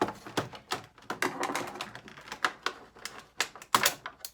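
Irregular rapid clicks and crackles of stiff plastic toy packaging and its ties being handled and pried at, with a louder cluster of clicks near the end.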